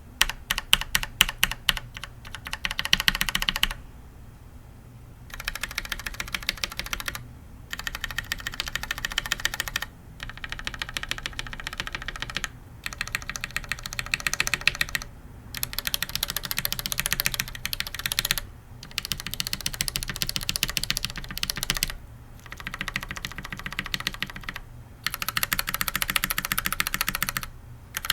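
Mechanical keyboard switches on an undampened Think 6.5 hotswap board, tapped rapidly in runs of a few seconds each, one switch after another in turn: Zealios, Retool MX Blacks, Stealios and Gateron Yellows, stock and lubed. The first run, ending about four seconds in, is louder hard tapping. The runs after it are fast light taps, close to real typing.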